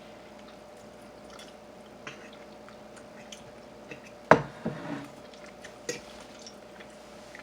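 Light kitchen handling noises over a steady faint hum: a few soft clicks and one sharp knock about four seconds in, then two smaller knocks.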